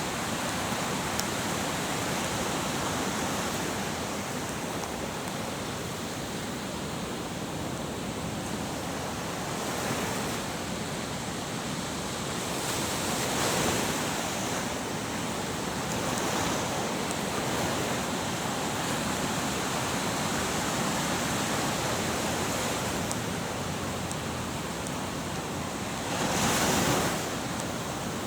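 Ocean waves washing in a steady rush, with a few louder surges as bigger waves break: one about ten seconds in, one a few seconds later, and the strongest near the end.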